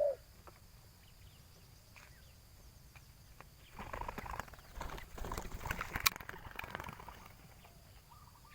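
Irregular rustling and sharp knocking, starting about four seconds in and lasting some three seconds, over a faint background with a few faint bird chirps.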